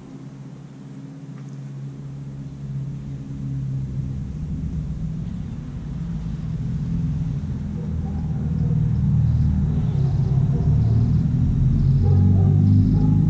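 Low engine rumble of a motor vehicle, growing steadily louder over the seconds. Faint high pips repeat a little under twice a second in the last few seconds.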